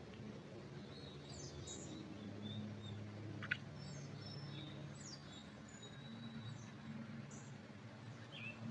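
Small birds chirping: scattered short, high chirps and quick falling notes, over a low steady hum. A single sharp click sounds about three and a half seconds in.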